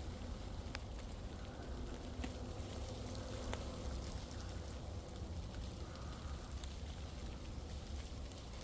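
Scattered ticks and taps of drips and small bits of ice falling through ice-coated trees in a frozen forest, sparse and irregular, over a low steady rumble.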